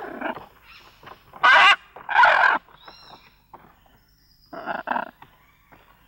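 A series of loud animal calls. The two loudest come about one and a half and two and a half seconds in, and a quick pair of calls follows near five seconds.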